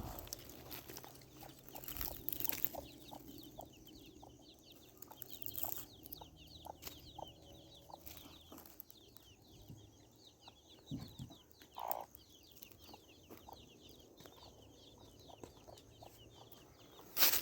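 Chicken clucking, with scattered small clicks and knocks.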